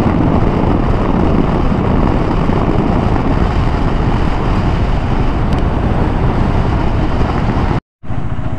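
Wind rushing over the microphone with the KTM 390 Adventure's single-cylinder engine running beneath it while riding at speed. The sound cuts off abruptly near the end.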